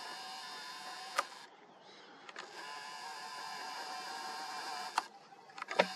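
Camera's zoom lens motor whining in two runs, with a short break about a second and a half in and a couple of sharp clicks.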